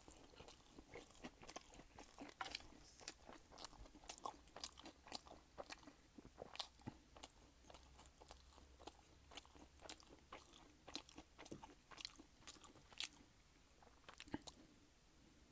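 A person chewing and biting food close to the microphone: a steady run of small, sharp, crisp crunches at an uneven pace.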